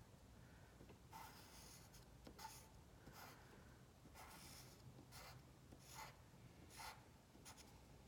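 Faint pencil strokes on paper: a quick series of short curved lines drawn one after another, about one stroke a second.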